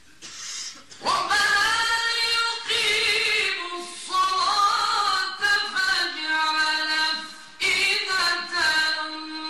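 Mujawwad Quran recitation: a man's voice chanting in long, ornamented held notes. It starts about a second in and breaks off briefly about three-quarters of the way through before going on.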